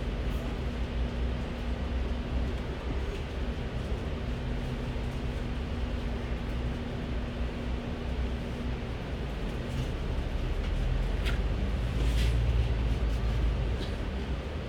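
A city bus's engine and running gear humming steadily, heard from inside the passenger cabin. It grows louder about eleven seconds in, with a few light rattles.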